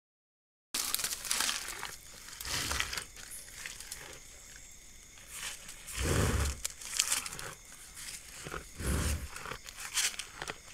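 Gaur feeding right at the camera: leaves and plant stems crinkling, tearing and crunching, starting abruptly under a second in. A few dull low thumps come about every three seconds.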